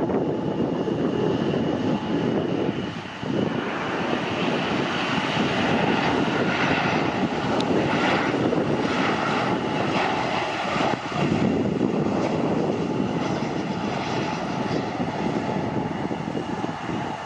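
Boeing P-8A Poseidon's twin CFM56-7B turbofan engines running on a low landing approach: a steady jet rumble with a thin whine, brightest and hissiest about halfway through as the aircraft passes close by.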